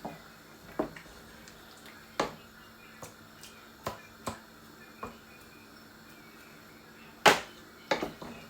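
Irregular sharp clicks and knocks of kitchen utensils against cookware, about ten in all, the loudest about seven seconds in.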